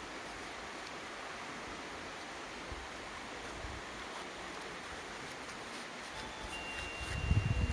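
Steady background hiss while a package is being opened, with a few low thumps of handling in the last second.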